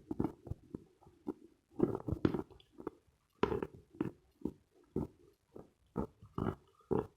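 Close-miked chewing of Khrapovsky eating chalk: a run of crisp crunches, about two a second, with a low muffled texture between them.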